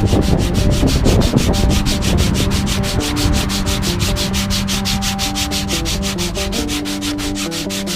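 Sandpaper rubbed by hand over wooden guitar necks in fast, even back-and-forth strokes, about six a second, to shape the necks.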